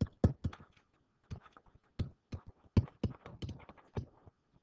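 A pen stylus tapping and scratching on a tablet surface while handwriting a few words: an irregular run of sharp clicks with short pauses.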